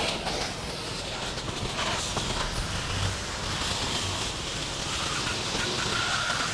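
Pressure washer spraying a rinse of water onto house siding: a steady hiss of water spray.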